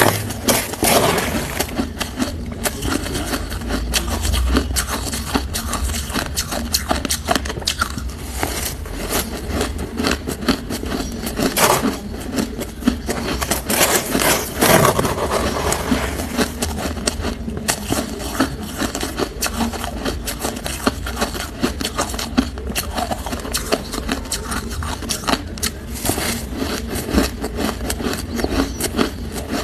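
Hard ice being bitten and chewed close to the microphone: dense, irregular crunching and cracking, with louder bites about twelve and fifteen seconds in.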